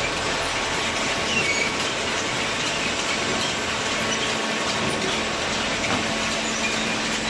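Hydraulic paper baler running: a steady, dense mechanical noise with a low hum and a few faint, high squeaks.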